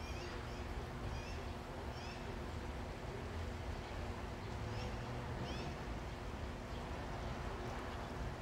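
Steady rain falling, with a bird giving about six short high chirps over the first six seconds, and a faint steady hum underneath.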